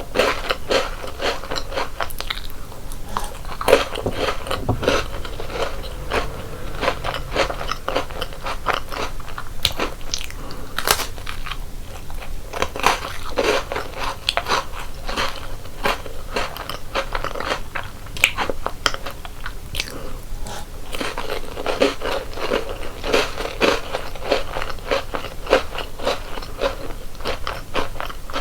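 Close-up biting, crunching and chewing of crunchy chocolate snacks: a steady run of dense, irregular crisp crunches with no pauses.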